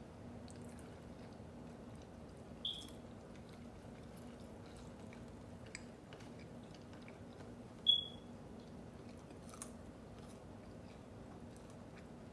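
Close-miked chewing of Chick-fil-A food with scattered small mouth clicks. Two short high-pitched squeaks about a fifth and two thirds of the way in; the second is louder.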